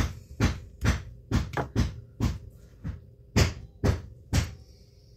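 A kitchen utensil knocking sharply and repeatedly against cookware, about two knocks a second, which stop about four seconds in. A faint steady hum runs underneath.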